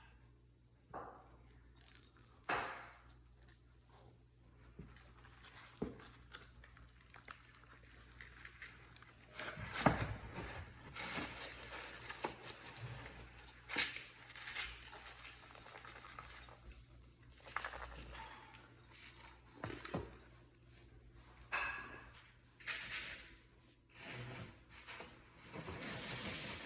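Irregular clicks, knocks and rattles of a cat ball-track toy, a ball knocking around inside its plastic track as a kitten bats at it, with the loudest knocks about ten and fourteen seconds in.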